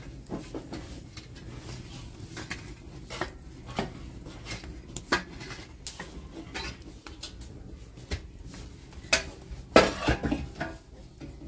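Small metal shovel scraping and clinking against burning embers and the clay walls of a sunken tandoor oven, in irregular clicks and scrapes. A louder clatter comes about ten seconds in as the shovel is laid down on the concrete.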